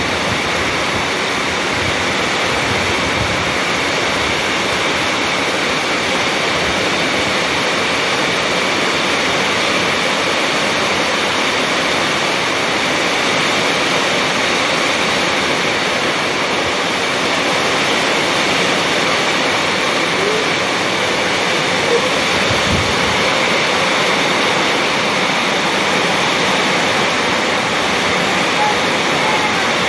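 Heavy rain pouring down onto a concrete patio and potted plants, a steady, dense hiss of falling water that does not let up.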